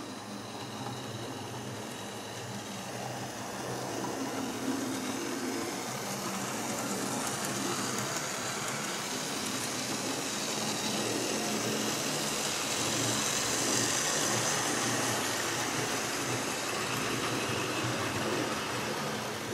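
Model HST (InterCity 125) train running on the layout's track: a steady whirr of the power car's small electric motor and wheels on the rails, getting louder as it draws near and easing slightly near the end.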